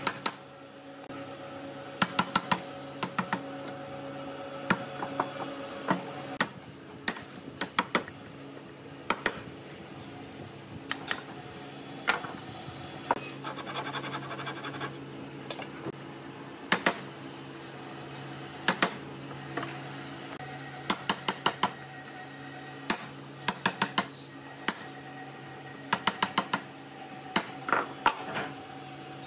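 Wooden mallet striking a chisel as it chops mortises into a softwood beam: sharp knocks in quick runs of two to five, with short pauses between runs. A faint steady hum runs underneath.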